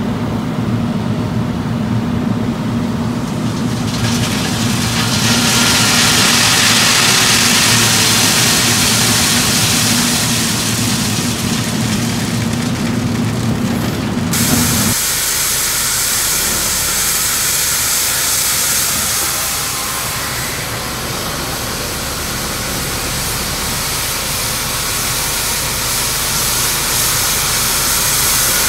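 Vibroflot (stone-column depth vibrator) and its carrying excavator running: a steady low machine hum, with a loud hiss over it from a few seconds in until about halfway. About halfway through the sound changes abruptly to a thinner, even machine noise with less hum.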